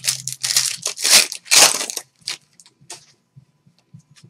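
A foil trading-card pack wrapper being torn open and crinkled by hand: a run of tearing, crinkling strokes in the first two seconds, loudest about a second and a half in. A few light clicks of the cards being handled follow.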